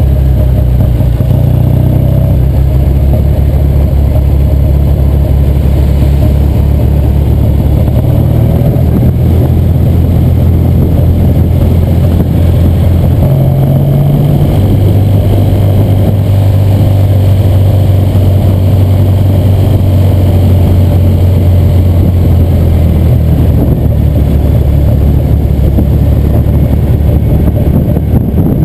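1966 Triumph TR6R Trophy's 650cc vertical-twin engine running under way as the motorcycle is ridden, its note stepping up and down a few times with changes in throttle.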